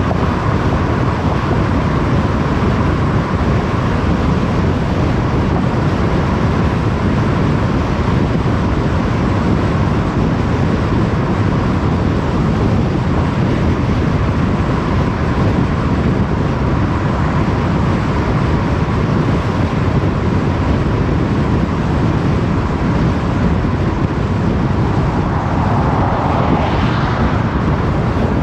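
Steady tyre and wind noise of a car driving at motorway speed, with a brief swell in the noise near the end.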